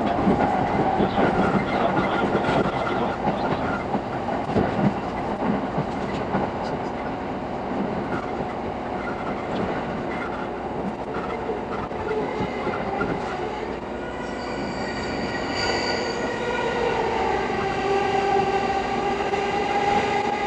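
E217 series commuter train heard from inside a carriage: steady running noise of wheels on rails with rapid rail-joint clatter. In the last third a whine of several steady tones comes in and drops in pitch a few seconds later.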